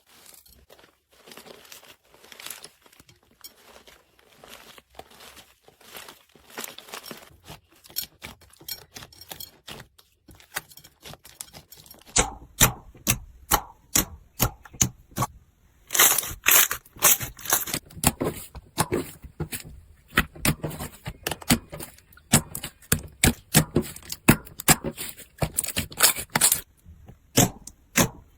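Crunchy slime being squeezed and pressed by hand, crackling and popping. The crackles are faint at first, then grow much louder and sharper partway through, into a dense run of crisp pops.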